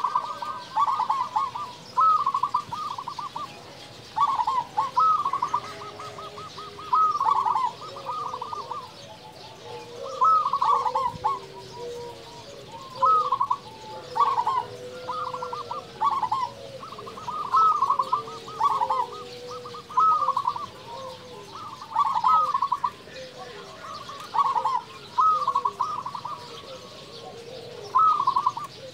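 Zebra dove (perkutut) singing: repeated phrases of rapid staccato coos, one every second or two, with softer, lower coos between and beneath them.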